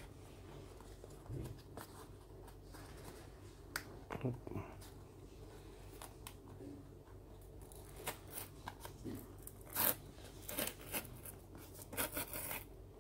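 Fingers handling and picking at a cardboard product box, making faint scattered scratches and taps that grow busier in the last few seconds as the box's paper seal tears.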